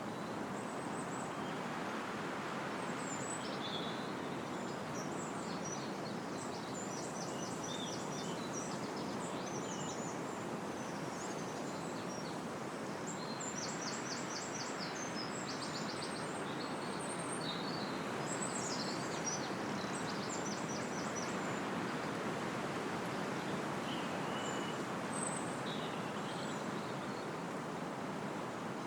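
Steady wind rushing through the trees of a small copse, with songbirds singing and trilling over it in short bursts throughout.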